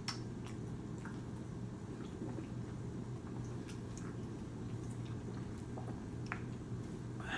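Faint scattered wet mouth clicks and chewing sounds over a steady low electrical hum.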